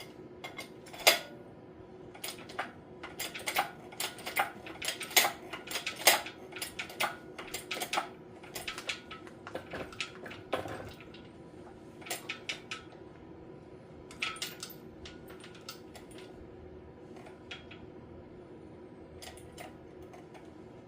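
Steel parts of a Farmall 450 wheel hub clinking and knocking as the hub is fitted onto its keyed axle shaft: a quick run of sharp metallic clinks over the first ten seconds or so, then a few scattered ones later, over a faint steady hum.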